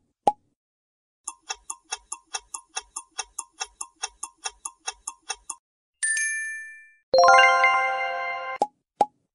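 Quiz-show countdown sound effects: a single pop, then a clock ticking about four to five times a second for about four seconds, ending in a bright ringing chime. A short musical sting follows, then a few quick pops.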